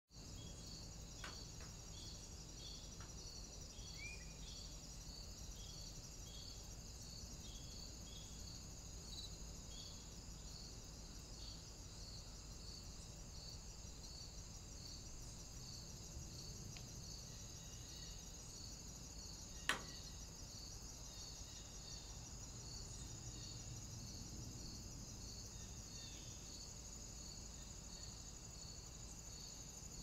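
Faint, steady insect chirping: a high pulsing trill at about two pulses a second. A few short chirps come in the first few seconds, and a single sharp click sounds about two-thirds of the way through.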